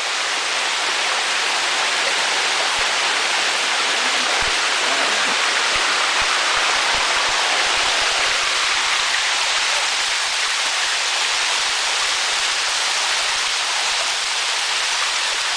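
Steady, loud rush of running water, as from a jungle waterfall or cascade, unbroken throughout.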